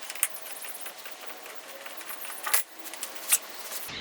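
Light metallic clinks and jingling, as of loose wheel lug nuts being handled and set down, with a sharper clack about two and a half seconds in and another near the end.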